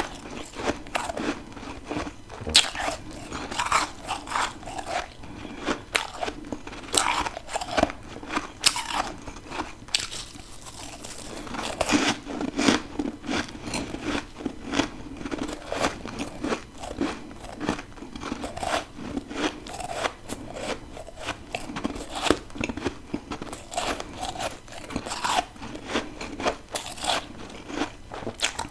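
Close-miked biting and chewing of deep-freezer frost and ice: repeated crisp crunches, several a second at times, running on without a break.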